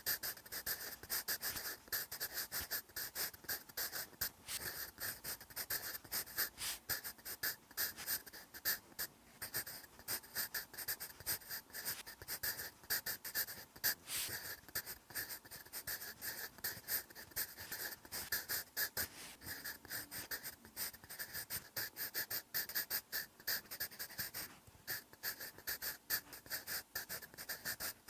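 Sharpened wooden graphite pencil writing by hand on lined paper: a quick run of short, scratchy strokes with brief gaps between letters.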